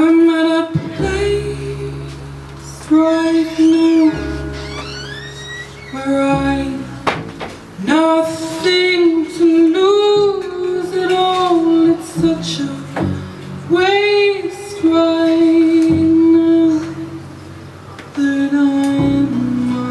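A woman singing live into a microphone, accompanied by an acoustic guitar and a double bass. Her long held notes, some wavering with vibrato, are separated by short gaps.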